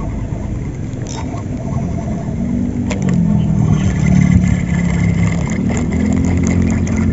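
A motor engine running steadily with a low hum that wavers slightly in pitch and grows louder about halfway through, with a couple of sharp clicks.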